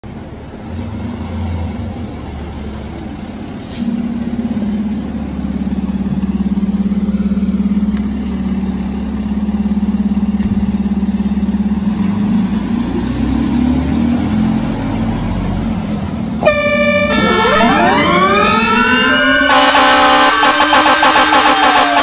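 Heavy diesel fire-truck engine running steadily, louder from about four seconds in. About sixteen seconds in, an air horn blasts. Then several sirens wind up together, rising in pitch, one of them a low rumbler tone, and a rapidly pulsing warning tone joins near the end.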